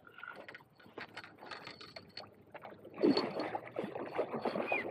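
Water splashing and sloshing as a big hooked carp thrashes at the surface while being reeled in close. The splashing grows much louder about three seconds in.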